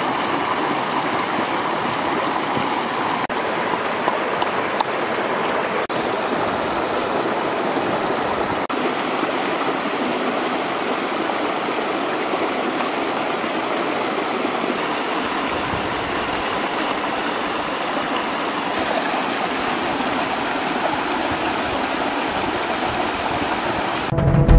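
Small river flowing over rocks in a low cascade: a steady, even splashing of water.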